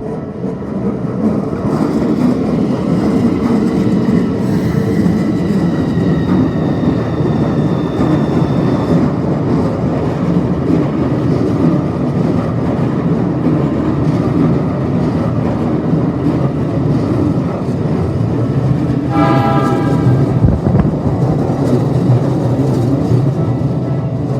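Electric commuter train passing slowly around a tight curve, with a steady rumble of wheels and motors. Thin high whining tones sound over the first several seconds, and a short horn blast comes about nineteen seconds in.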